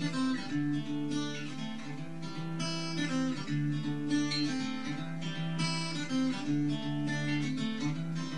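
Acoustic guitar playing a quick picked melody over a repeating bass line.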